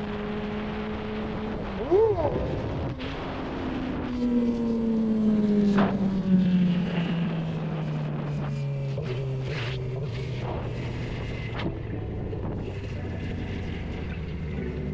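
Suzuki GSX-R600 inline-four motorcycle engine running at steady cruise, with a quick rev up and back down about two seconds in. The engine note then falls gradually as the throttle is rolled off and the bike slows, settling into a low steady drone.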